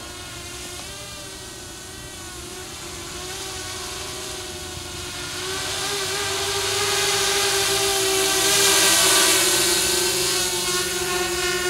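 Mini 250 quadcopter's four brushless motors (1806 2300KV) and 5030 propellers buzzing in flight, its pitch wavering up and down. It grows louder past the middle as the quad comes down closer, loudest about three quarters of the way in.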